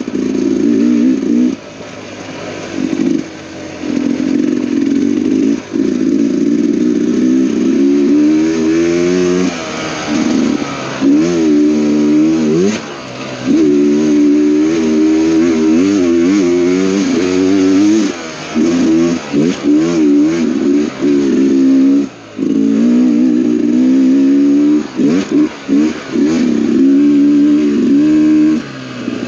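Dirt bike engine revving up and down in repeated throttle bursts, dropping back briefly between them as the rider rolls off, with a few sharp knocks.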